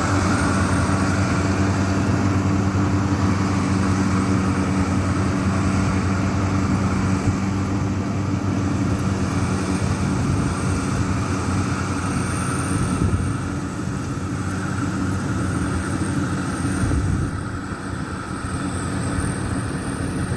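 Engine of a WD 102 Pro rice combine harvester running steadily at a constant speed, with a slight drop in level about two-thirds of the way through.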